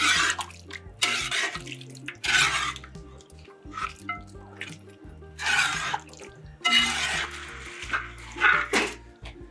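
Wooden spoon stirring thick beef curry in a large pot: about six wet, scraping strokes through the meat and sauce, over soft background music.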